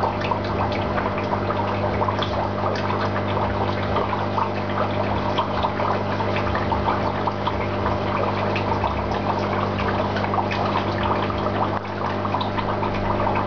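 Aquarium water bubbling and trickling: a dense, continuous crackle of small splashes over a steady low hum from the tank's pump.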